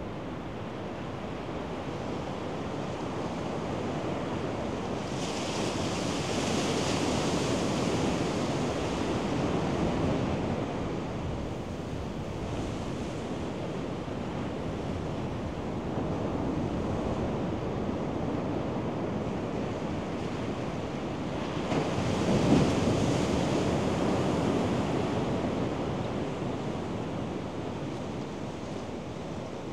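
Surf on a sandy beach: a steady wash of small waves, swelling twice as larger waves break and hiss up the sand, about five seconds in and more loudly a little past twenty seconds in.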